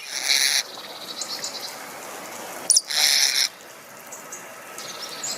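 Ornamental starling giving two harsh, rasping chatter calls, one at the start and one about three seconds in, with faint high chirps between them.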